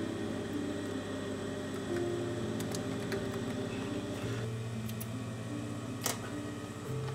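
Soft background music of low sustained notes that change pitch every second or so, over a faint steady hiss, with a few light sharp clicks, the loudest about six seconds in.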